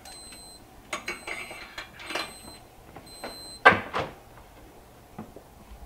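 Scattered knocks and light clatter as a cooked summer sausage is lifted off a metal oven rack and carried away by gloved hands, with one sharp knock a little past halfway.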